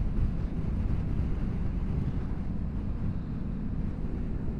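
Motorcycle on the move at a steady pace: a steady low engine and road rumble with wind rushing over the microphone.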